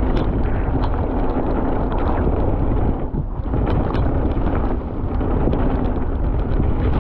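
Mountain bike riding down a wet trail: wind rushing over the microphone and tyres on the ground, with frequent short clicks and rattles.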